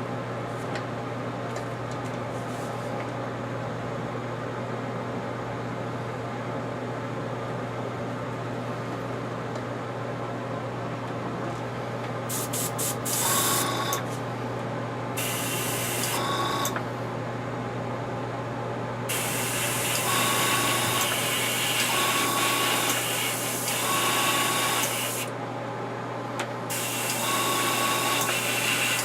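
Airbrush spraying paint in a run of on-off bursts of hiss, some brief and some several seconds long, starting about twelve seconds in, over a steady low hum.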